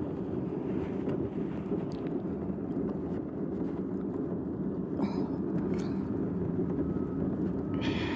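Steady low outdoor rumble, with a couple of faint clicks about five seconds in.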